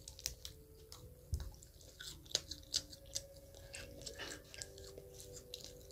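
A person chewing a mouthful of French fries: a run of small, irregular clicks.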